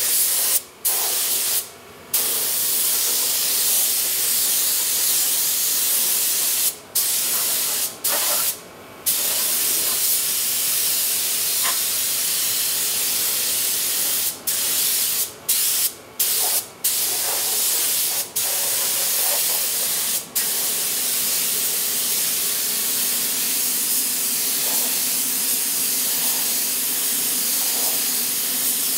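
Compressed-air paint spray gun hissing steadily, cut by about a dozen short breaks as the trigger is let go, most of them in the first twenty seconds.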